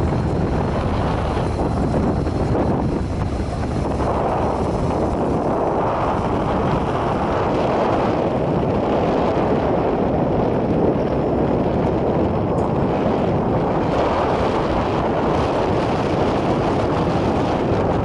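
Steady wind rumble buffeting the microphone over the running and road noise of a vehicle driving uphill along a winding road.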